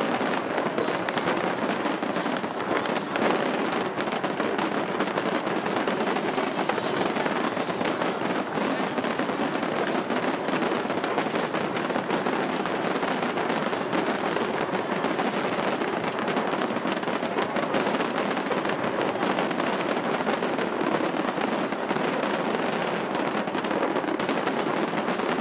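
Skyscraper fireworks display firing in a dense, unbroken barrage: countless crackles and pops merging into a steady rattle.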